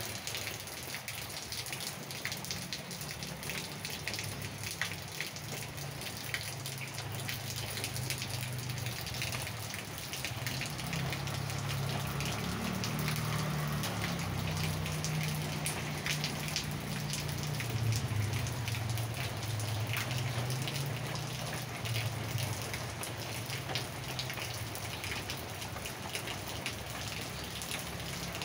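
Steady rain falling on paving, roof and leaves, a continuous hiss with many individual drops ticking close by. A low hum underneath grows louder about a third of the way in and eases off near the end.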